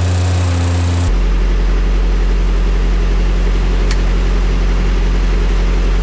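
Diesel engine idling steadily close by, a low hum that shifts abruptly lower and a little louder about a second in. A single sharp click near four seconds in.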